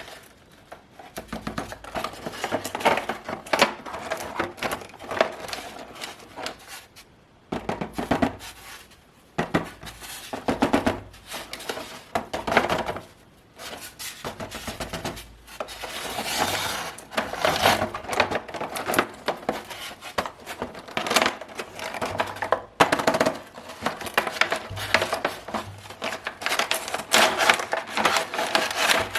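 Packaging being handled and unpacked: irregular bursts of rustling, crinkling and clicking, with a few brief pauses.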